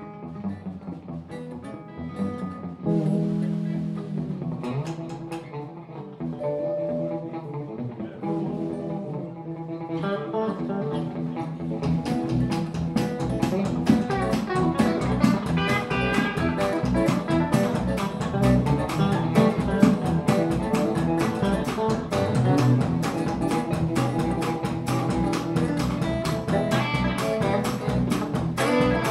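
Live blues band: a sparse opening on a Stratocaster-style electric guitar, then the full band with bass and drums comes in about twelve seconds in and plays on.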